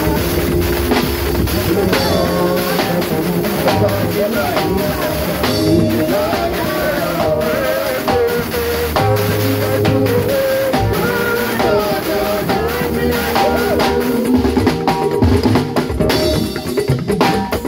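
Live church band music: a drum kit played close by, with steady drum hits over held bass and melody notes.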